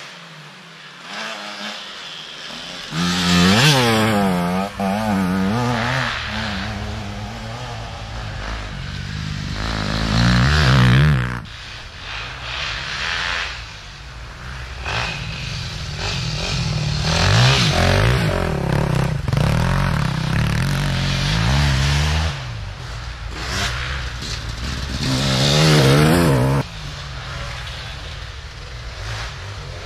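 Enduro motorcycles revving past one after another, engines rising and falling in pitch as the throttle is worked; about four passes are loudest.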